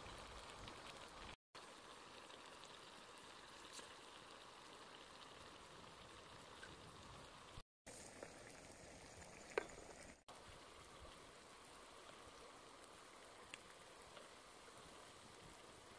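Faint, even bubbling of a pot of catfish stew simmering over a wood fire, with a few light clicks, the sharpest near the middle. The sound drops out briefly twice.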